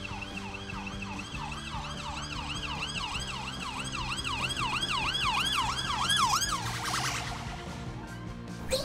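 Police car siren on a fast yelp, its pitch sweeping up and down about three times a second, cutting off about six and a half seconds in.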